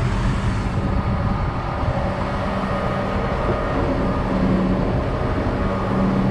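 Tractor engine running steadily, a continuous low hum.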